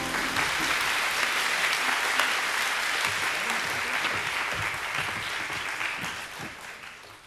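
Theatre audience applauding, a dense steady clapping that dies away over the last second or so.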